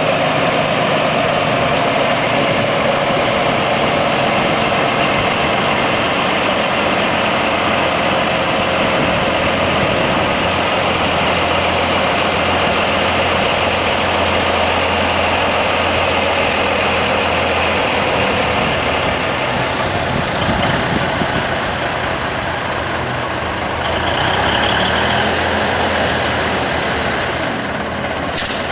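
1981 Scammell Contractor heavy tractor unit's diesel engine idling steadily while the truck stands parked.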